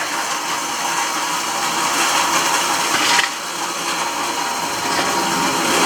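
Radio-controlled scale construction model working, its small electric drive and gears whirring and grinding steadily. The sound dips briefly about halfway through, then picks up again.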